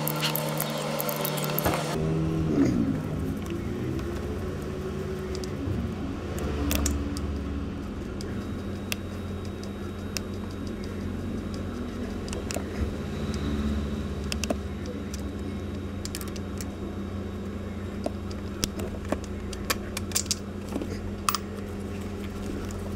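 A power tool runs and winds down about two seconds in. After that come scattered light metallic clicks and rattles of hand work on the starter motor's bolts and wiring, over a steady low hum.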